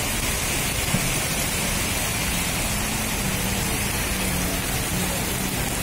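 Heavy rain pouring down steadily, with the low steady hum of an idling coach bus engine underneath from a couple of seconds in.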